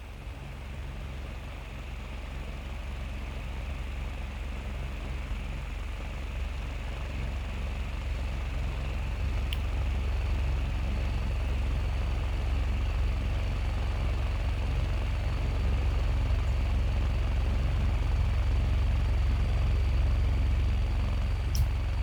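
A small motor running steadily with a low hum that grows gradually louder, a faint thin high whine joining about halfway through, and two light clicks.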